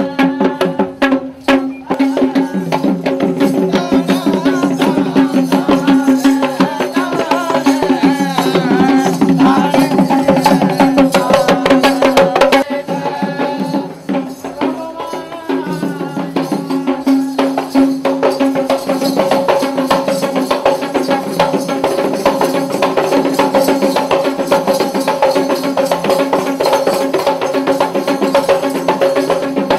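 Live Sri Lankan traditional drumming for a Kandyan dance: fast, dense drum strokes over a steady held tone, easing off briefly about halfway through.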